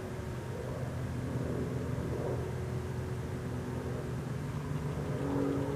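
Cessna 172S Skyhawk SP's four-cylinder piston engine and propeller droning steadily, low-pitched, as the plane climbs away after take-off.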